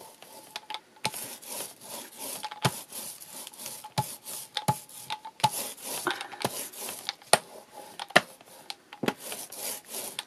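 Rubber brayer rolling white gesso back and forth over textured craft card: repeated rubbing strokes, roughly one a second, with sharp clicks among them.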